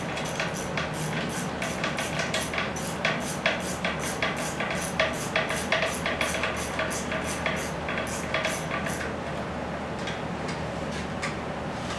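Hand ratchet wrench clicking in quick, regular back-and-forth strokes, about three a second, as it turns a bolt on an aluminium engine cylinder head. The clicking stops about nine seconds in, with a few faint clicks near the end.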